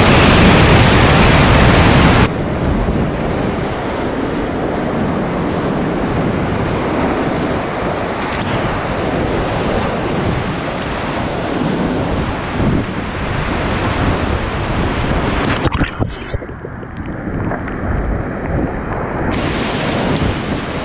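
Flood-level whitewater rushing around a kayak running a river waterfall and rapids, heard close up from the paddler's chest. It is loudest in the first two seconds, and goes muffled for about three seconds near the end before the full rush comes back.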